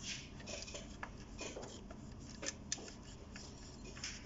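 Tissue paper rubbed over a Seiko 5 watch's metal case in short irregular strokes, with two light clicks about two and a half seconds in.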